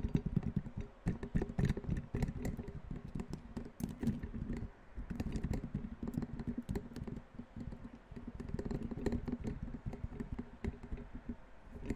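Fast, irregular tapping: many dull taps a second in a dense run, with a few short lulls.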